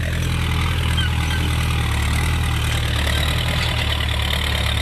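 Ford 6610 tractor's four-cylinder diesel engine running steadily.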